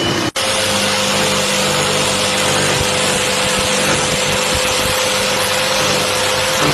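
A power tool or workshop machine running steadily: a loud, even rushing noise with a steady hum under it, starting after a brief dropout just after the start.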